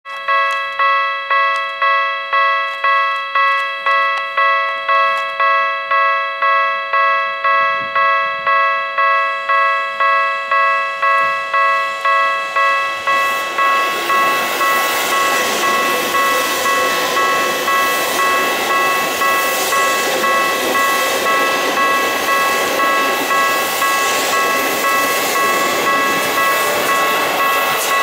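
Railway level crossing warning bell ringing steadily, about two strikes a second. From about halfway in, a Seibu 6000 series electric train runs past over the rails, its rumble rising under the bell.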